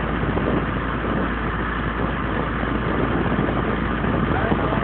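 A fishing boat's engine running steadily under a constant noisy rush.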